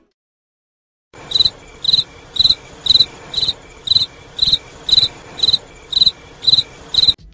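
Cricket chirping steadily, about two short high chirps a second, starting about a second in after a moment of dead silence and stopping abruptly near the end.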